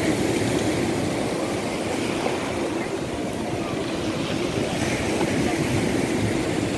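Surf breaking on a pebble beach where a rain-swollen, muddy river runs into the sea: a steady rushing of churning waves.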